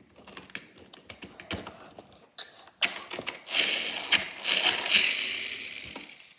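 Plastic clicks and ratchet-like snaps of a Bumblebee Transformers toy's joints and panels being twisted by hand, followed from about three seconds in by a stretch of continuous rustling and scraping that fades out near the end.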